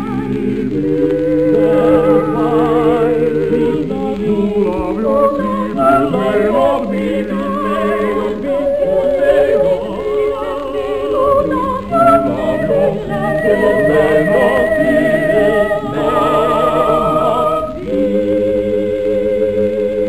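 A madrigal sung by a soprano with vibrato, with lower voices singing in harmony beneath her. Near the end the voices settle on a long held chord.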